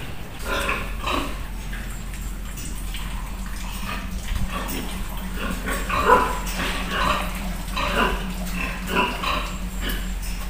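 Mud-covered young pigs in a pen calling with short grunts and squeals, one every second or so, loudest about six seconds in, over a steady low hum.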